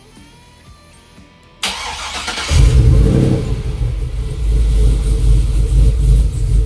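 Swapped-in 6.0-litre LS V8 in a Chevy Colorado being started. About a second and a half in, a short loud burst of cranking, then the engine catches and runs loudly and unevenly.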